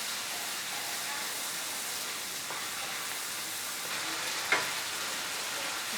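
Spice paste of onion, ginger and garlic sizzling steadily in hot mustard oil in a pan while being stirred, with a spoon scraping the pan once about four and a half seconds in.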